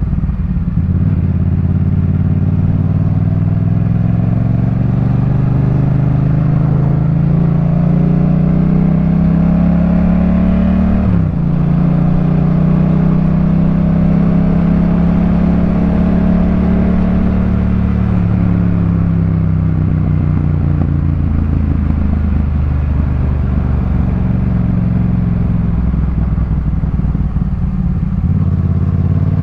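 A 2018 Yamaha MT-07's parallel-twin engine heard through a Jeskap K4 full exhaust system while riding. The pitch climbs under acceleration, drops sharply at a gear change about eleven seconds in, climbs again, then falls away as the bike slows and settles into steady running.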